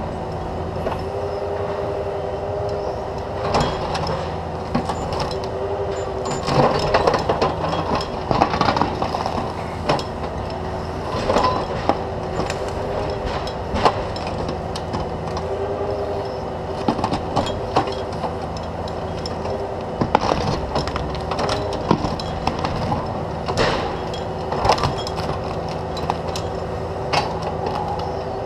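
Caterpillar 305.5E2 mini excavator's diesel engine running steadily under hydraulic load, its pitch wavering slightly, while the bucket digs at and pries out a tree stump. Repeated sharp cracks and crunches of roots and wood breaking are heard throughout.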